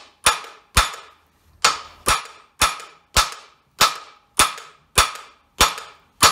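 Ball-peen hammer striking the steel yoke of a Jeep Cherokee driveshaft set over bench-vise jaws: about eleven sharp metallic blows, nearly two a second, each with a short ring. The blows are driving a stuck U-joint bearing cap up out of the yoke, and the cap is still tight and not moving.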